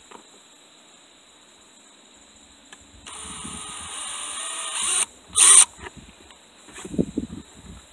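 Cordless drill boring a hole into a car's plastic console trim: about two seconds of steady running that grows louder, then a brief, louder burst of the drill halfway through. Rustling handling noise near the end.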